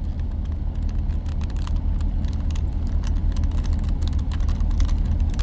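Plastic Rubik's Cube being turned by hand, an irregular run of quick clicks and clatters, over a steady low hum.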